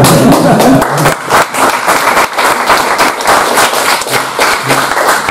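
Small audience applauding: a dense patter of hand claps, with a few voices over the clapping.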